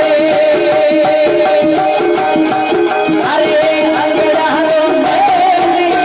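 Indian folk music played live through loudspeakers: a held, wavering melody line over a dholak drum, with jingling percussion keeping a steady, fast beat.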